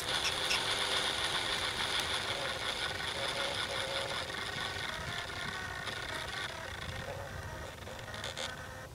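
Light two-wheeled horse cart rattling steadily as it rolls along a dirt farm lane behind a trotting miniature horse, easing off a little toward the end.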